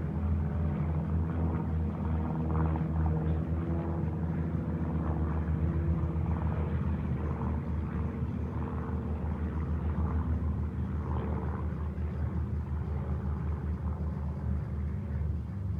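Piston engines of a formation of four single-engine propeller planes droning steadily overhead, several low engine tones blending together.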